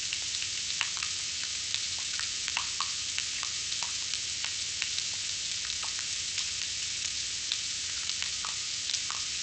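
Breaded food deep-frying in hot oil: a steady bright sizzle with frequent small pops and crackles.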